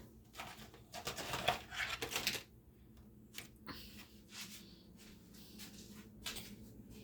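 Rustling and light clicks of things being handled, with a cluster of short scraping rustles about one to two and a half seconds in, then a few scattered clicks.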